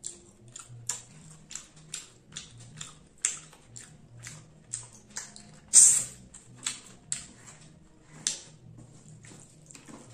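Close-miked eating sounds of a person eating rice and fish fry by hand: a steady run of wet chewing clicks and lip smacks, about two or three a second, loudest about six seconds in as a fresh mouthful goes in.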